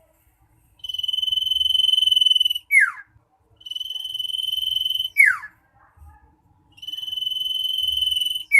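Common iora (cipoh) singing a loud, insistent song: a long held whistle of about two seconds, each ending in a quick downward slur, three times over.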